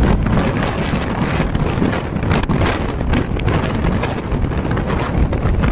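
Wind rushing over the microphone of a Yamaha R15 sports bike at road speed, a steady rough roar with the motorcycle running underneath.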